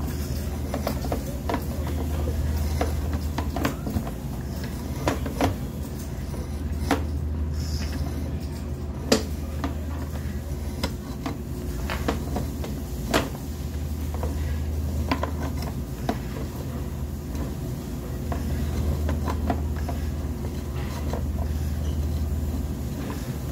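Sewer inspection camera's push cable being pulled back out of a drain line: irregular clicks and knocks over a steady low hum, with the sharpest knocks about nine and thirteen seconds in.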